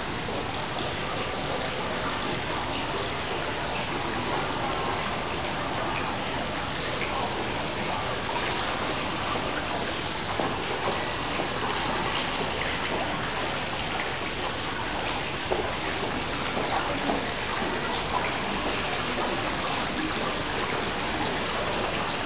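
Indoor fountain's water splashing into its basin: a steady hiss that holds an even level throughout.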